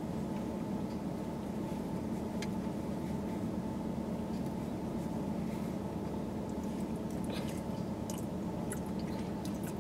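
Steady low hum inside a car cabin, with a few faint clicks of someone chewing pizza.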